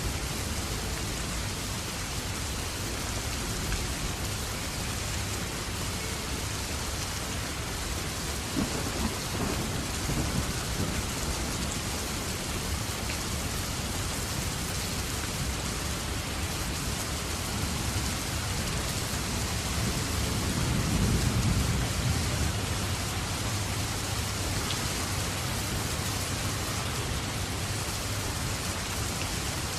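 Steady rain falling. Two low rumbles of thunder swell under it: a small one about a third of the way through and a louder one past two-thirds.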